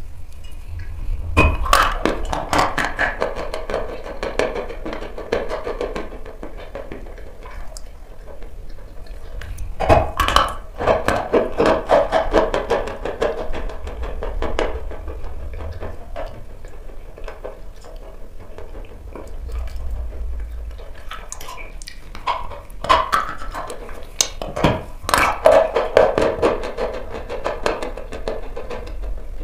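A lump of dry chalk being bitten and chewed close to the microphone. Several sharp, snapping crunches as pieces break off, each followed by long stretches of dense crunchy chewing.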